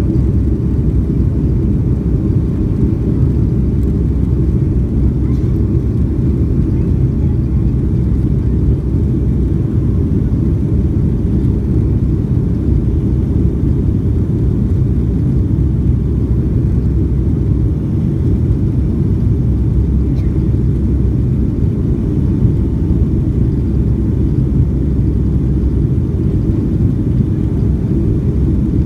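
Boeing 757 airliner cabin noise in flight: a steady low rumble of jet engines and airflow, heard from inside the cabin.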